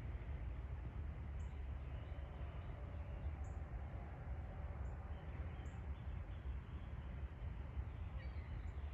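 Early-morning outdoor ambience: a steady low rumble with a few brief, faint high bird chirps scattered through it.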